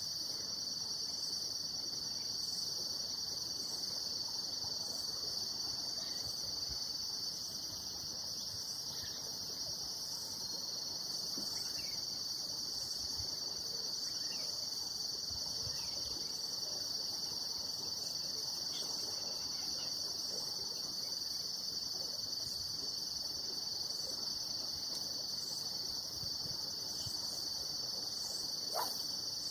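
Steady high-pitched insect chorus, a continuous trilling, with a faint pulsing higher trill above it.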